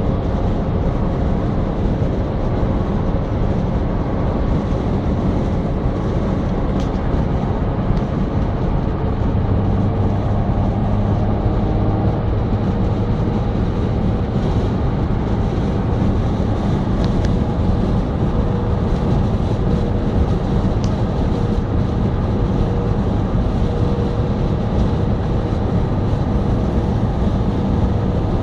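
Steady low rumble of a moving vehicle, with a faint hum, unbroken throughout.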